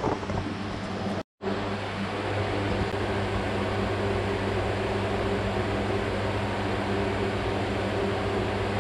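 Steady electric hum of a ventilation fan running, a low even drone with no rhythm, cutting out briefly about a second in.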